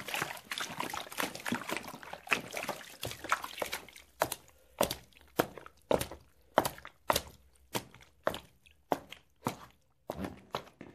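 A dense run of small crackles and taps for about four seconds, then footsteps, evenly spaced at about two steps a second.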